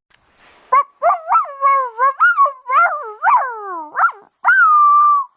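Dog howling in a run of short warbling calls that slide up and down, ending with one longer held note near the end.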